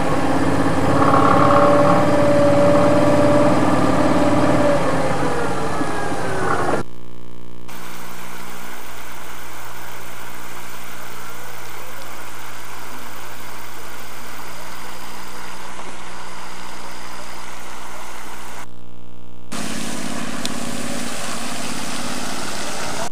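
An engine running with a steady pitched hum that slides down in pitch about five seconds in. After a sudden change near seven seconds, it gives way to a steadier low hum with hiss.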